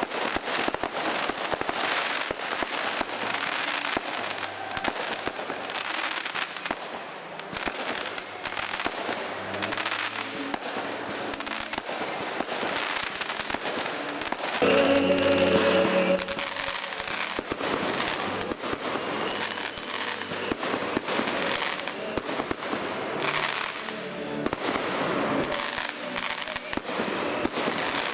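Aerial fireworks going off in quick succession, a continuous run of bangs and crackling bursts, with music playing underneath.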